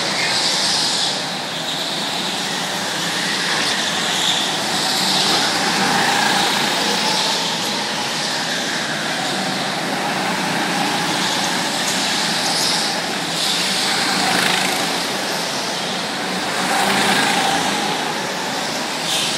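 Several small go-kart engines running around an indoor track, the sound rising and falling in waves as karts pass.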